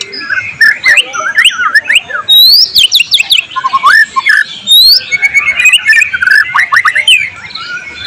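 White-rumped shama singing a loud, rapid, varied song of whistles, swooping rising and falling notes and sharp clicks; it breaks off about seven seconds in.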